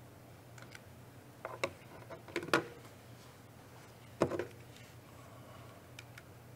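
A few scattered light clicks and knocks, the loudest a little over two seconds in and another about four seconds in, over a faint steady low hum.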